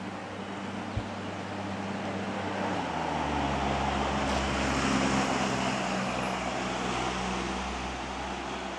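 A road vehicle driving past, its engine and tyre noise building from about three seconds in, at its loudest about halfway through, then easing off.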